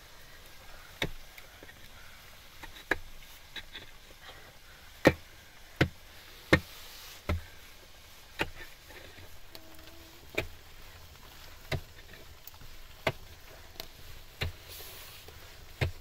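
About a dozen sharp blows, struck one at a time at irregular gaps of roughly a second.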